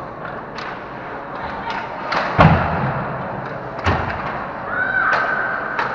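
Ice hockey play close to the goal: sticks, puck and skates knocking and scraping, with a heavy thump about two and a half seconds in and a second sharp knock near four seconds. Players' voices call out, with a short high-pitched call near the end.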